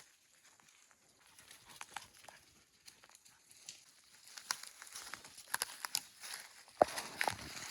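Irregular crackling and rustling of movement through dry brush or leaf litter, sparse at first and busier in the second half, with a louder sharp snap about two-thirds of the way through.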